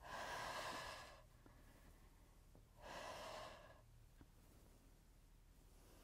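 A woman breathing out hard twice, about three seconds apart, each breath lasting about a second, on the effort of abdominal curl repetitions.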